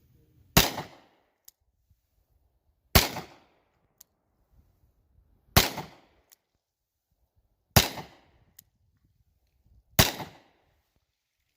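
Taurus Judge revolver firing five shots over a chronograph, evenly spaced about two to two and a half seconds apart, each sharp report followed by a short decaying tail.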